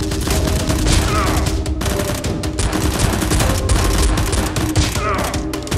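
Rapid, continuous bursts of gunfire sound effects over steady background music.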